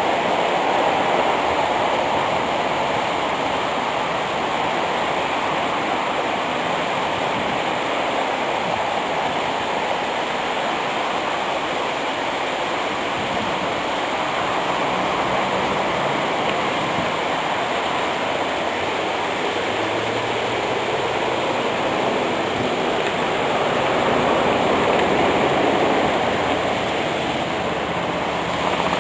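Waterfall: a steady, continuous rush of falling water, swelling slightly a few seconds before the end.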